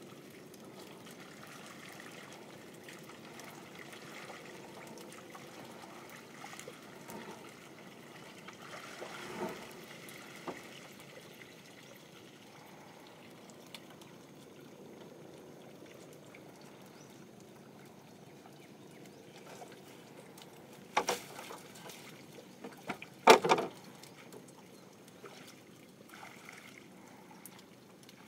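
Faint water trickling and lapping around a small fishing boat as a wet net is handled. A soft knock comes about a third of the way in, and two sharp knocks come near the end, the second the loudest.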